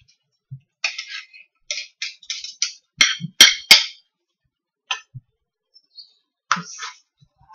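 Metal cutlery scraping and clinking as a knife and spoon are worked against each other and on a plate, with three sharp clinks about three to four seconds in.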